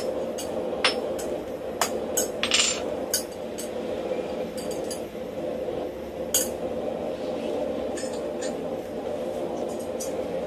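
Hand hammer striking a hot steel bar on a steel block while forging tong stock. The blows come about two a second for the first four seconds, then more scattered, the loudest about six seconds in, over a steady hum.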